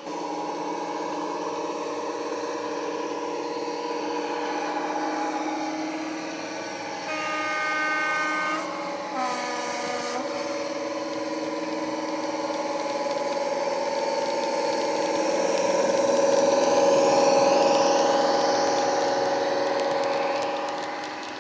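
Factory-fitted DCC sound decoder in an Accurascale OO gauge Class 55 Deltic model, playing the Napier Deltic diesel engine sound through its small onboard speaker, thin on bass. About seven seconds in the two-tone horn sounds, a high note and then a lower one, each cut off sharply. The engine sound swells as the model runs close past.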